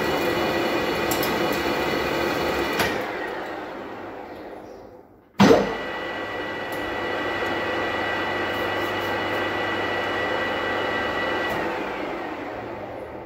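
Manual lathe headstock running with a steady gear whine during an ACME threading pass. About three seconds in a click comes, and the spindle winds down and nearly stops. Just past five seconds a loud clunk comes as the spindle is thrown into reverse, and it runs steadily again before winding down once more near the end.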